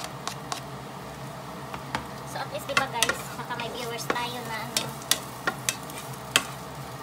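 Chopped onion and garlic sizzling in oil in a nonstick frying pan as they are sautéed, stirred with a wooden spatula that gives frequent sharp clicks and knocks against the pan.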